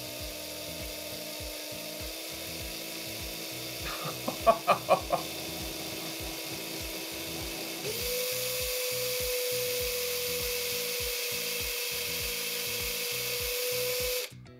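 Cordless drill motor whining steadily as it spins a glass rod in thick slime. About eight seconds in, its pitch steps up as the drill speeds up, and it stops just before the end. A few short, louder sounds break in around four to five seconds in.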